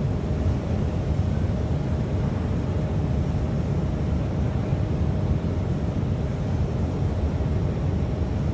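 Steady low rumbling background noise with a faint steady hum over it, unchanging throughout.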